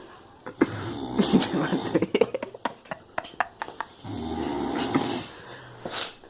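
A drunk man snoring in his sleep: one long, low snore about four seconds in, with a breathy exhale near the end. It follows a run of sharp clicks and knocks in the first few seconds.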